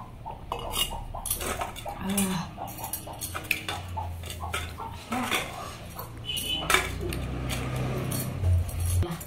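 Stainless-steel bowls and plates clinking and scraping against each other and the concrete floor as a meal of watered rice is eaten by hand, with many short sharp clinks.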